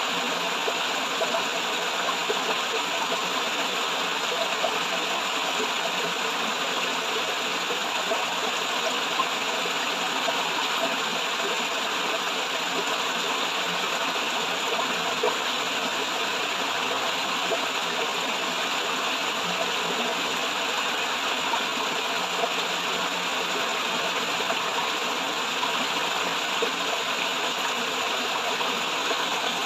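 Flowing water falling over a waterfall: a steady, unbroken rush with small flickering peaks.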